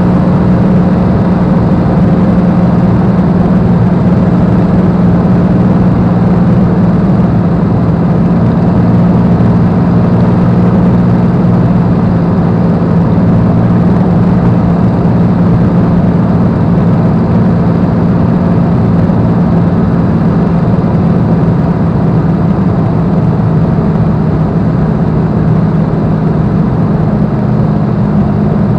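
Supermarine Spitfire's V12 piston engine and propeller droning steadily in cruising flight, heard from inside the cockpit.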